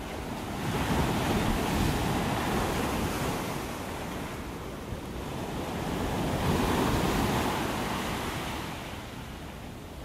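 Heavy Gulf of Mexico surf breaking on the beach, a steady wash that swells about a second in and again around six to seven seconds, then eases, with wind buffeting the microphone.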